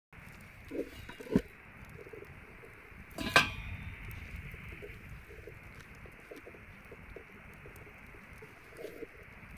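A few short, low cooing calls from a bird, with two sharp knocks near the start, over a steady hiss.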